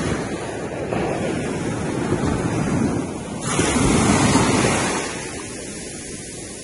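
Waves washing on a shore with wind buffeting the microphone; a louder rush of surf swells up about halfway through and dies away.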